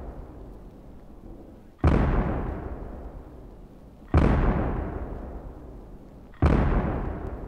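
Three deep, heavy booms about 2.3 seconds apart. Each strikes suddenly and then dies away in a long rumble.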